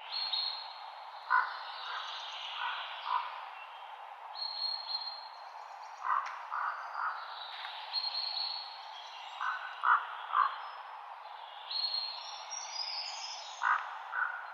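Forest ambience: a steady rustle of wind through trees, with birds calling over it. A call of three or four short notes repeats about every four seconds, with higher chirps between.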